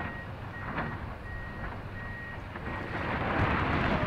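Komatsu excavator's backup alarm beeping at a steady pace over its running engine. Near the end the beeps give way to a louder rushing noise as the base of the brick smokestack starts to crumble in a cloud of dust.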